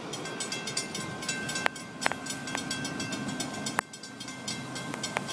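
Railroad grade-crossing warning bell ringing in rapid, evenly spaced strokes while the crossing gates rise, with a few sharp knocks mixed in and a brief break near the end.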